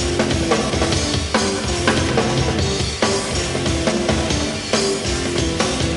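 Live rock band playing an instrumental passage: drum kit with bass drum hits, electric guitar and bass, between sung lines.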